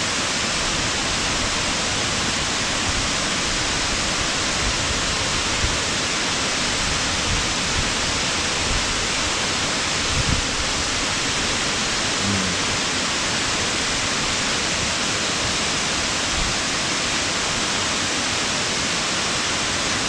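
Smith Falls waterfall pouring onto rocks: a steady, even rush of falling water.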